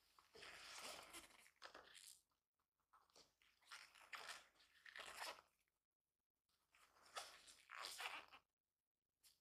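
Faint rustling and scraping of nitrile-gloved hands handling and turning a cardboard smartphone box, in three bursts of about two seconds each with short quiet gaps.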